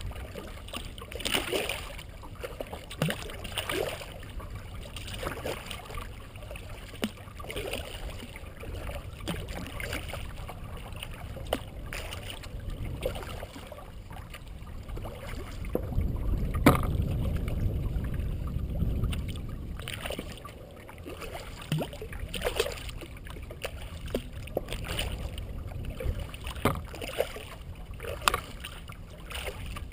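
Kayak paddle strokes in calm water: the blade dips, splashes and drips roughly every second or so, with water moving along the hull. A low rumble swells for a few seconds midway.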